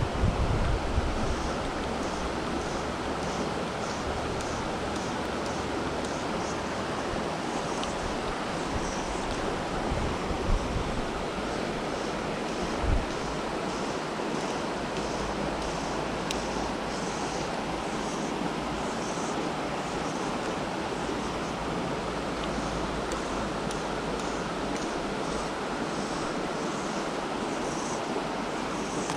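Shallow rocky mountain river running over stones: a steady wash of water. Faint high-pitched notes repeat about twice a second, and a few low thumps come near the start and about ten and thirteen seconds in.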